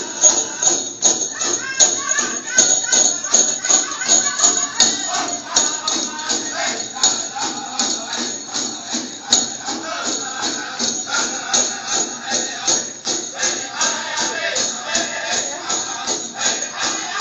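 Powwow song for a Prairie Chicken Dance: singing over a steady fast beat, with bells on the dancer's regalia jingling in time with his steps.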